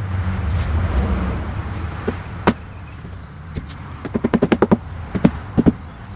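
A low rumble that fades over the first two seconds, then sharp knocks and taps from a hand tool working on a wooden boat-seat base: single knocks, a quick run of about eight light taps around four seconds in, then a few more.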